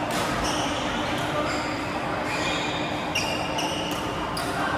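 Badminton players' court shoes squeaking on the hall floor in many short, high-pitched squeals during a rally, with a couple of sharp smacks, one near the start and one near the end.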